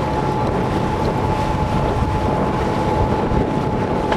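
Strong wind buffeting the microphone on the deck of a sailing yacht under way, over the steady rush of water along the hull. A thin steady whistle runs underneath.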